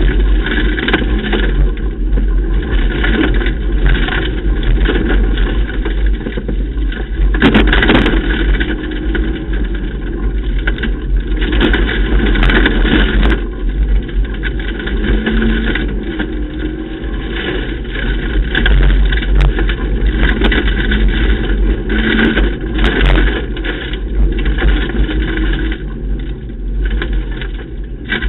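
Ford Ka rally car's engine heard from inside the cabin, running hard with the revs rising and falling as it is driven flat out along a gravel stage. Sharp knocks cut through several times, the loudest about eight seconds in.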